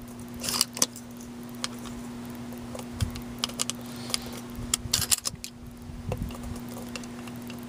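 Scattered metallic clicks and clinks in small clusters, typical of a shotgun's action and shells being handled between rounds, over a steady low hum.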